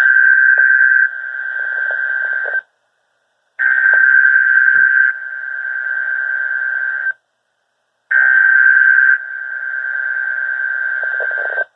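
NOAA Weather Radio SAME (Specific Area Message Encoding) digital data bursts heard over a weather radio receiver: three buzzing, screechy tone bursts with about a second of silence between them. This is the coded signal of a Required Weekly Test.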